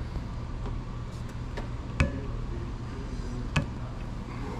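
Steady low hum of shop background with two sharp clicks of small hard parts being handled, about two seconds in and again about a second and a half later.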